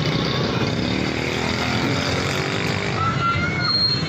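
Street traffic noise with a motorcycle engine running, and short high-pitched tones near the end.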